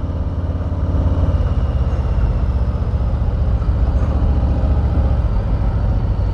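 Harley-Davidson Street Bob's Milwaukee-Eight V-twin running on the road, a steady low rumble of rapid firing pulses that grows slightly louder about a second in.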